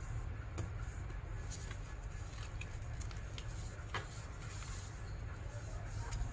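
Origami paper rustling and being creased by hand, with scattered light clicks and a short swish of paper sliding about four and a half seconds in, over a steady low hum.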